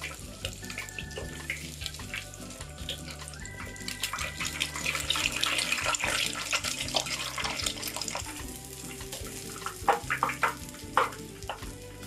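Breaded minced-beef cutlet deep-frying in hot oil, a dense crackle that swells in the middle. A few sharp clicks near the end as it is handled with chopsticks. Soft background music underneath.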